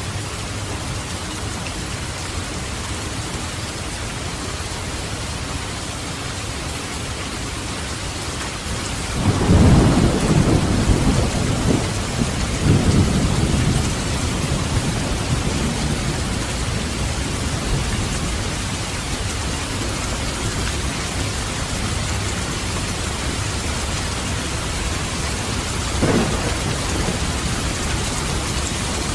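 Steady rain, with a loud crack and rumble of thunder about nine seconds in that rolls on for a few seconds, and a short, fainter rumble near the end.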